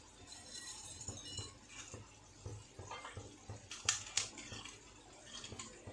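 Pan of water at a rolling boil with noodles in it, bubbling. A little under four seconds in there are two sharp knocks as a wooden spatula stirs the noodles against the pan.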